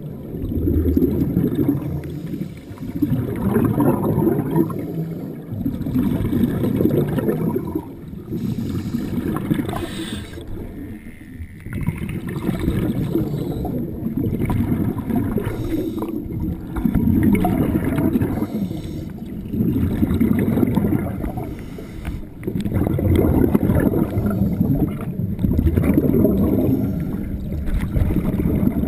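Scuba regulator exhalation bubbles heard underwater: a low bubbling gurgle that swells in bursts every few seconds, with lulls between breaths.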